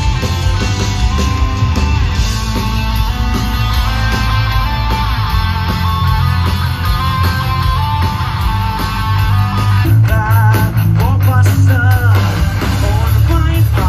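A live rock band playing, with guitar to the fore and a heavy bass. About ten seconds in the music fills out and a wavering lead melody comes in.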